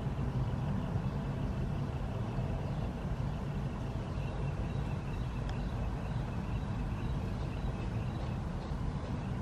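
Steady low rumble of background noise, with a faint thin high tone above it and one faint click about five and a half seconds in.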